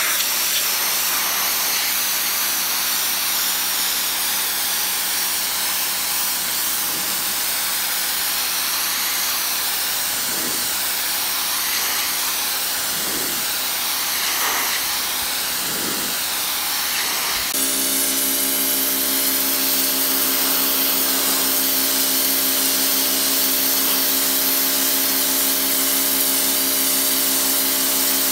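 Cecotec HidroBoost 1600 electric pressure washer running: the water jet hisses against stone paving over the steady hum of the pump motor. A little past halfway the sound changes abruptly and the motor hum becomes stronger, then stays steady.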